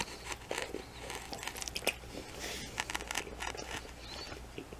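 Faint eating sounds at a plate of takeout noodles: scattered small clicks and soft rustles, as from a plastic fork working through the food and chewing.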